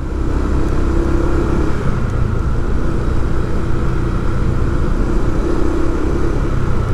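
A motor vehicle's engine running steadily with road rumble, a low even hum holding throughout.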